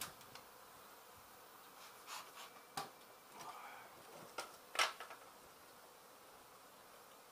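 Honey bees from a disturbed colony buzzing steadily, with a few short sharp knocks and scrapes from the hive being worked; the loudest knock comes a little under five seconds in.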